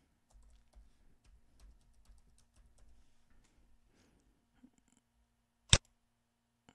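Typing on a computer keyboard: a quick run of soft key taps for about three seconds, then one sharp, loud mouse click near the end.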